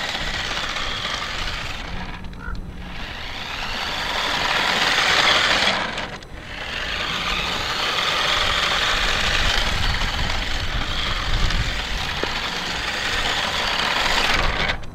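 Remote-control toy Chevy Camaro driving and drifting on asphalt: its small electric motor whirs and its tyres scrub, heard as a hiss that swells and fades as the car moves. The sound drops out briefly twice.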